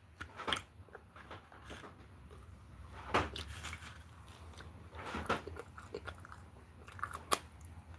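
A person biting into and chewing crispy breaded fried chicken close to the microphone, with scattered crunches. The sharpest come about three seconds in, around five seconds in and again near the end.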